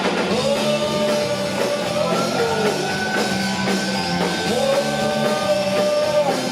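Rock band playing: drum kit and electric guitar, with a melody line that bends up and down in pitch between sung lines.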